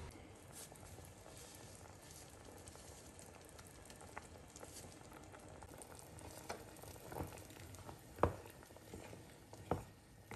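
Chicken pieces bubbling and sizzling in liquid in a stainless steel pot, a faint steady crackle. In the second half come a few sharp knocks, the loudest about eight seconds in.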